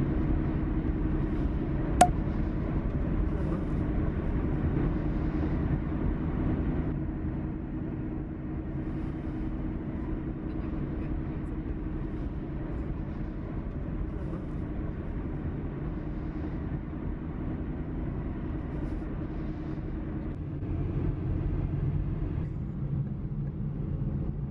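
Steady low drone of engine and road noise inside a moving car, with a single sharp click about two seconds in.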